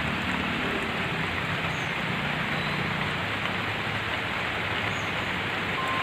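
Steady rain falling on shrubs and waterlogged paths, an even hiss that does not let up.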